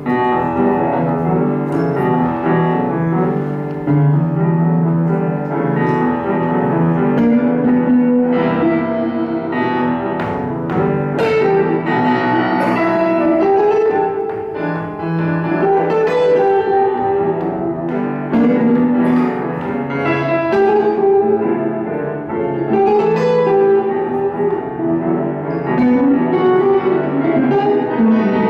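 Grand piano and hollow-body electric guitar playing together live, with dense, continuous notes.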